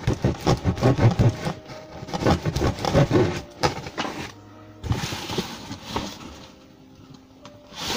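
Music: busy and dense for the first few seconds, then sustained held notes that grow quieter toward the end.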